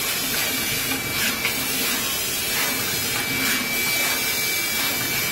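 Steady hiss and hum of an automatic flex-PCB supporting-tape mounting machine at work, with a constant high-pitched whine and faint, slightly louder swells about every second.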